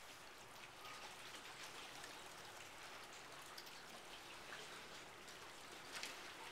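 Faint water lapping and trickling: a soft, even hiss with scattered small ticks and splashes.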